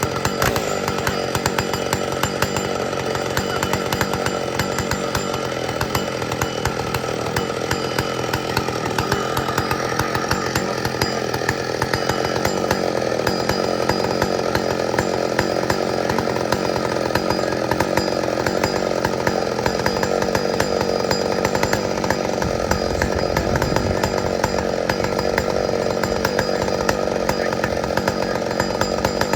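Old McCulloch two-stroke chainsaw running loud and unbroken for the whole stretch, its engine note filling out a little about halfway through.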